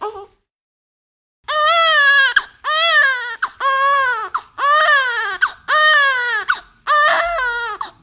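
Infant crying in a steady run of about six wails, each about a second long, rising then falling in pitch, with short catches of breath between them. They start after about a second and a half of silence.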